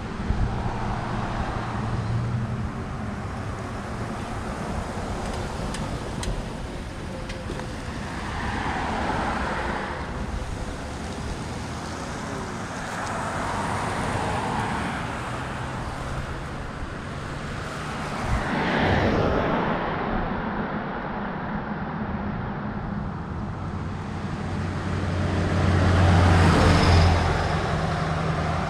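A vehicle driving: steady low engine hum with tyre and road noise that swells four times, loudest near the end.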